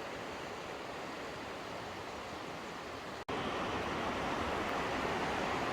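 Steady rushing water, an even hiss. It drops out for an instant about three seconds in and comes back louder.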